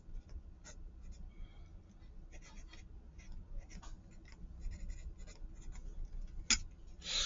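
Pencil writing on paper: short, irregular scratchy strokes as an equation is written out. A single sharp click comes near the end.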